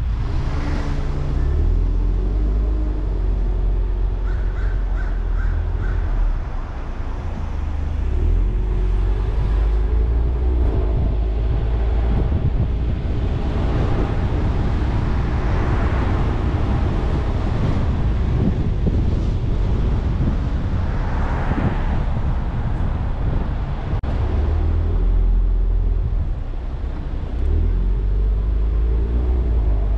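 Car driving on city streets, heard from its own body-mounted camera: a steady low engine and road rumble whose engine note rises and falls as the car pulls away and climbs, with wind on the microphone and a few swells of louder noise.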